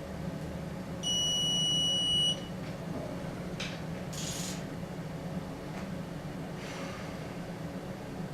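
A single electronic beep, a steady high tone lasting just over a second, over a steady low hum, with a few faint short hisses afterwards.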